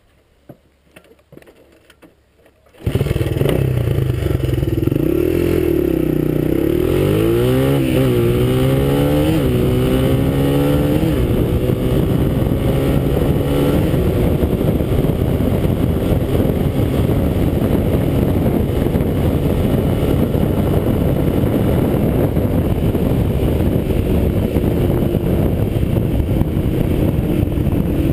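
A small dirt bike engine accelerates hard through the gears. Its note climbs and drops back at each of about four quick upshifts, then holds steady at speed under heavy wind rush on the microphone. The first three seconds are quiet apart from a few light clicks.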